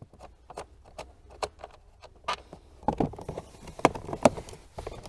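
Irregular light clicks and taps from a ratchet with a T20 Torx bit turning out a loose screw that holds the dashboard panel, with a few sharper clicks around the middle.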